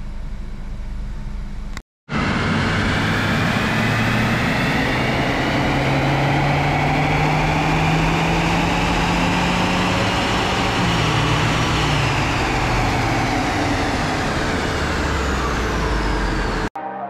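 Stock Beijing X7's 1.5-litre turbo engine on a chassis dyno doing a baseline power run. After a short steady stretch and a brief break, the revs climb steadily for about eight seconds over the whine of the rollers, then ease off and wind down. The sound cuts off suddenly near the end.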